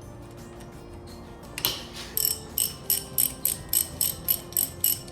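Socket ratchet wrench clicking at a steady pace of about three clicks a second, starting about two seconds in, after a single sharp clank just before.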